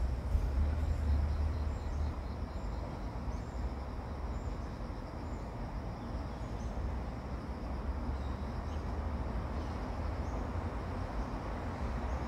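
A steady low rumble with faint, high bird chirps scattered through it.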